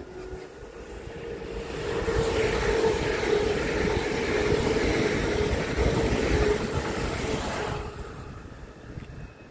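Electric multiple-unit train passing close by: wheel and rail noise with a steady hum, building over about two seconds and fading away near the end.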